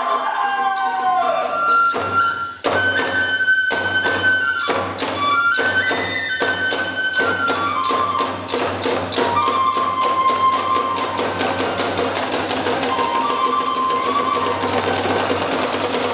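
Kagura hayashi accompaniment: a bamboo transverse flute (fue) plays a wavering melody over taiko drum strikes that quicken from about two seconds in into a fast, dense beat, with hand cymbals (tebyoshi) clashing along.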